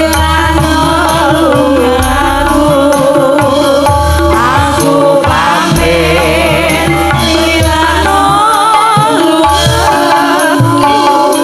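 Javanese sinden (female singers) singing through microphones over a gamelan ensemble, with kendang drum strokes keeping the rhythm.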